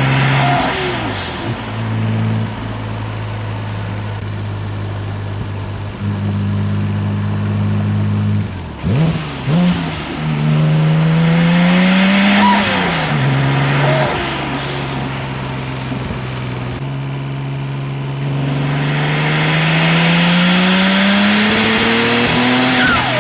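Audi S4 B5's 2.7-litre twin-turbo V6 on a full-throttle test pull, with a misfire on cylinder 2. The engine note holds steady for a while, climbs in pitch and drops sharply at gear changes about nine and thirteen seconds in, then climbs long and steadily near the end.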